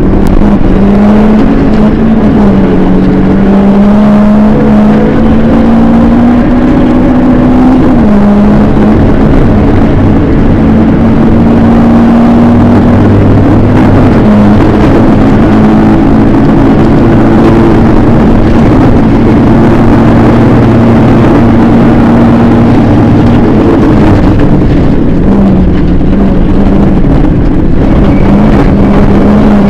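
Onboard sound of a rally car driven flat out on a gravel stage: the engine runs loud at high revs, its note climbing and dropping sharply several times as the driver shifts gears and lifts for corners, over constant road and gravel noise.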